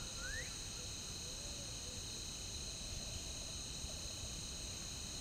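Steady chorus of crickets or similar insects, a layered high-pitched trill, with a faint rising whistle near the start.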